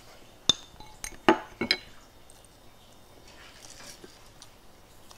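Metal spoon clinking against a small ceramic bowl: several sharp clinks close together in the first two seconds.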